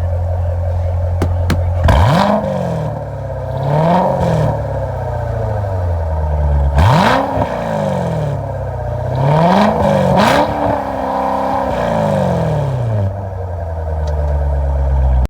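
V8 muscle car with an aftermarket exhaust idling with a deep, steady note and revved five times, the last rev held for about two seconds before dropping back to idle.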